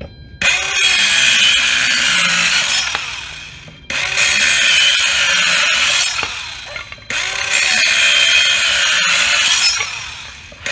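Battery-powered compact circular saw cutting through a 2x6 board in three runs of about three seconds each. The sound starts suddenly each time and dies away between runs.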